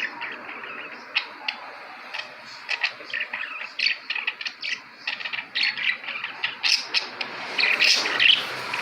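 Budgerigars chirping and chattering: a steady stream of rapid, short, high calls, with a louder run of chatter near the end.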